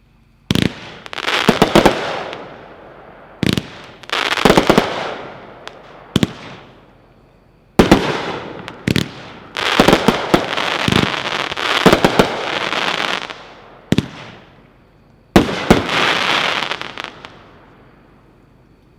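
A 24-shot consumer fireworks cake (Heavyweight's The Contender) firing. Its shots start about half a second in and come singly and in quick clusters, each a sharp bang trailed by a noisy tail that fades over a second or two. The last shot dies away near the end.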